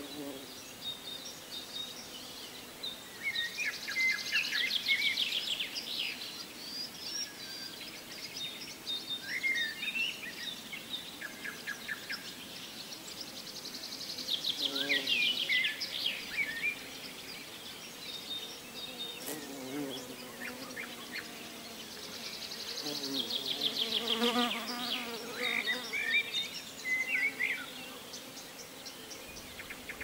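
Small birds singing: a loud trilled phrase comes three times, about every ten seconds, among scattered chirps. Insects buzz along with it.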